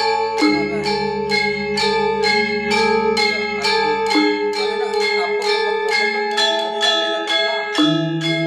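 Balinese gamelan gong ensemble playing in rehearsal: bronze metallophones struck in a steady, even run of about four ringing strokes a second, over sustained low tones that change pitch a few times.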